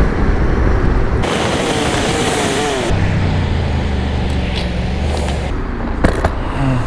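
Honda NC750's parallel-twin engine running at low speed as the motorcycle slows. About a second in, a loud hiss lasts roughly two seconds, and there is a sharp click near the end.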